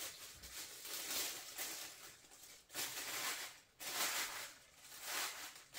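Packaging being handled: rustling and scraping in about five short surges as a boxed statue's foam-packed parts are pulled out.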